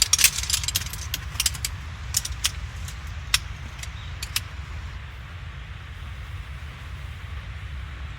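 Camping gear being handled and set out: a quick run of light metallic clicks and clinks for the first four seconds or so, then only steady background noise.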